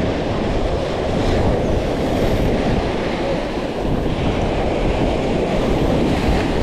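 Strong wind rumbling steadily on the microphone over surf washing in across wet sand, with brief surges of wave hiss about a second in and again near the four-second mark.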